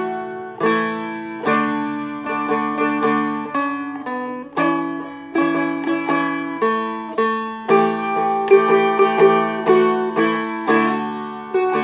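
A Seagull Merlin M4, a four-string fretted dulcimer-style instrument, picked and strummed through a slow melody line. The melody notes move over open drone strings that keep ringing, with quick runs of notes in places.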